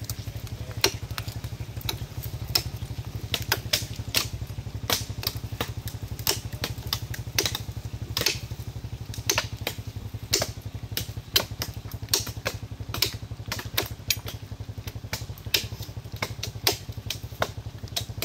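Repeated sharp chops of a parang (machete) hacking into the branches of a fallen tree, irregular, roughly one or two strikes a second. A small engine idles steadily underneath.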